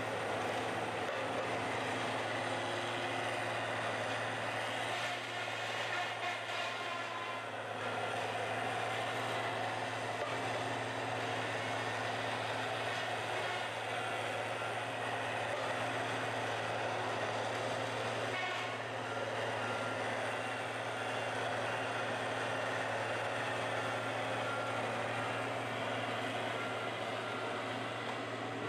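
Tigercat wheeled feller buncher's diesel engine running steadily as the machine fells and bunches bamboo stems, with a faint repeated beep in the second half.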